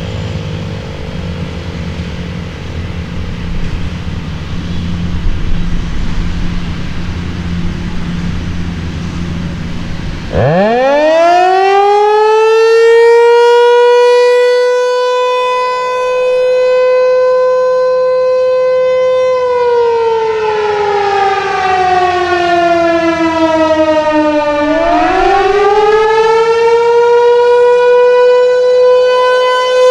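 ASC T-128 outdoor warning siren switching on about a third of the way in. It sweeps up quickly to a high wail and holds steady, then slowly falls in pitch and climbs back up, the rise and fall of the attack signal. Before it starts there is only a low rumble.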